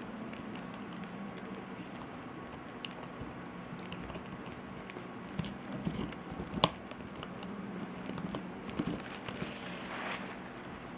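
American cocker spaniel gnawing a chew stick: scattered clicks and crunches of teeth on the chew, with one sharp crack about two-thirds of the way in. A steady low hum runs underneath, and a brief hiss comes near the end.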